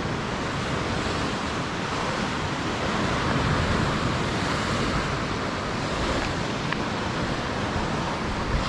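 Lake Superior surf washing against the shore, a steady rushing sound that swells a little around the middle, mixed with wind.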